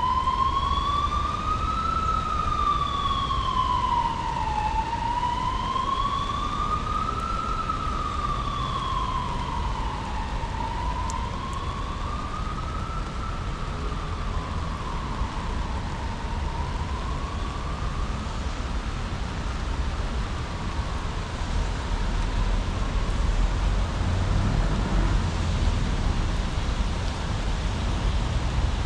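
A distant emergency-vehicle siren wailing, its pitch slowly rising and falling about every five and a half seconds, fading away about two-thirds of the way through. Steady rain hiss underneath, with a low rumble near the end.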